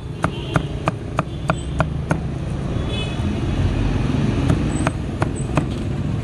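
Cleaver chopping roast pork on a chopping block: sharp knocks about three a second, pausing for about two seconds midway, then resuming. A steady low traffic rumble runs underneath and swells in the pause.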